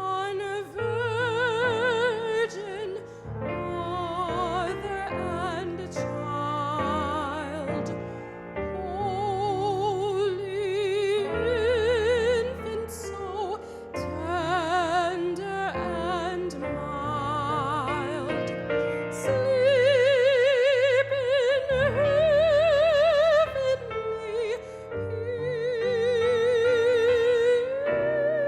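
Classical-style solo singing with a wide vibrato over instrumental accompaniment, the voice holding long notes in the last few seconds.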